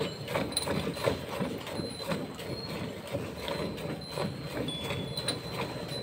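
A cow being milked by hand into a steel pail: rhythmic squirts of milk hitting the frothy milk in the bucket, about two or three a second.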